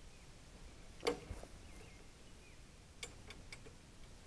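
Sparse clicks and taps of hands working a lawn mower's recoil starter and pull cord: one louder click about a second in, then a few lighter ticks around three seconds.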